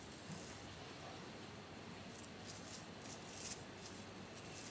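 Clear plastic sheet rustling and crinkling in irregular crackles as hands stretch and smooth it over a large cloth-lined tray.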